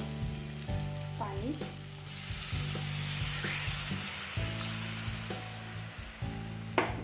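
Onion-tomato masala sizzling in hot oil in a kadhai on a high gas flame. Water is poured in partway through and the hiss grows stronger. A sharp knock comes near the end.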